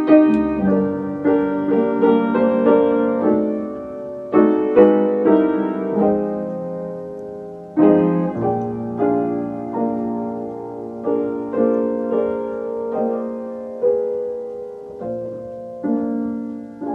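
Background piano music: a slow, gentle piece of single notes and chords, each struck and left to ring away.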